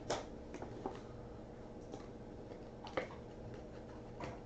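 1978 Topps cardboard baseball cards being handled and shuffled: a few faint light clicks and rustles, the sharpest at the start and about three seconds in, over a low steady room hum.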